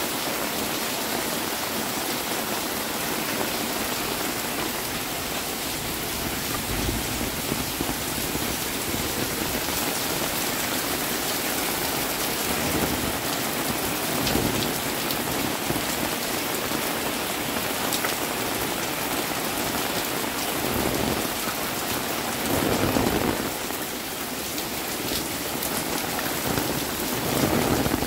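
Heavy rain falling steadily on roofs and a wet concrete alley, with water dripping off the roof edges. The rain swells briefly louder twice in the last few seconds.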